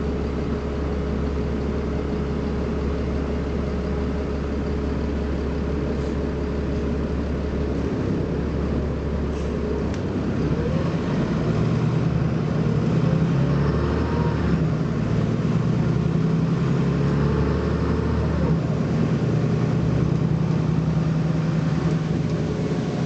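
BMC Belde 220-SLF city bus engine running steadily at low revs, then pulling away and accelerating from about ten seconds in. It gets louder, and the engine note changes as the bus gathers speed.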